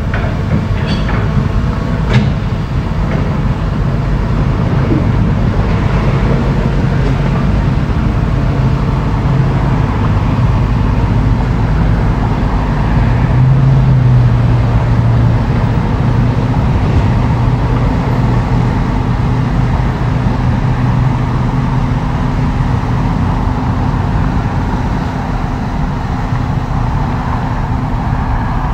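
Diesel engine of a working excavator running steadily, its note swelling and rising briefly about halfway through. Two sharp knocks sound near the start.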